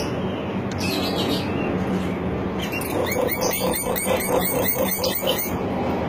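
Hill myna (beo) calling a quick run of about a dozen identical short chirps, roughly five a second, in the second half, over steady background noise with a low hum.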